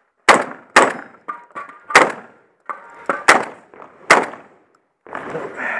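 Shotgun fired five times in about four seconds: two quick shots, then three more about a second apart. Steel targets ring between shots.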